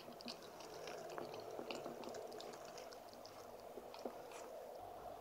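Golden retriever puppy chewing and mouthing on an adult golden retriever's face and ear: a scatter of small, soft wet smacks and clicks.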